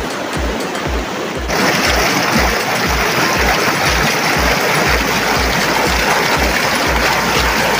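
Rain-swollen mountain stream rushing and splashing over rocks, getting louder about a second and a half in. The bass beat of background music thumps about twice a second beneath it.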